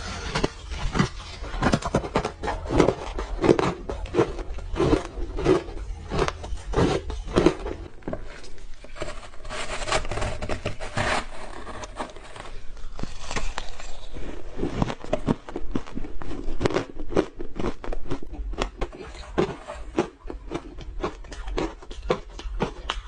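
Close-miked crunching and chewing of frozen orange ice, many sharp crunches coming at a steady chewing pace, with a softer stretch in the middle.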